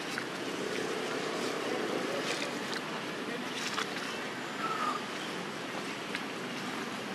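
Steady outdoor hiss with a few faint rustles and crackles of a large green leaf being handled by a baby macaque.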